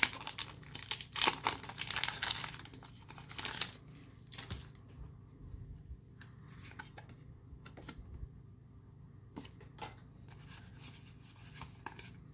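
Foil booster-pack wrapper of a Pokémon card pack being torn open, loud crinkling for the first four seconds or so. Then quieter scattered ticks and rustles as the stack of cards is handled.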